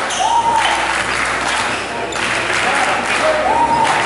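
Crowd applauding between volleyball rallies, with a few shouted calls over the clapping.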